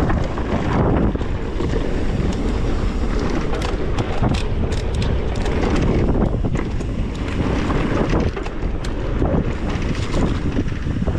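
Wind buffeting the action camera's microphone as a mountain bike rides downhill, over a steady rumble of tyres on the dirt trail. Short clicks and rattles from the bike come and go through the middle.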